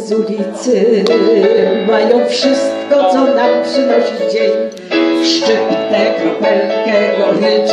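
Live amplified music: a woman singing with vibrato into a microphone over instrumental backing.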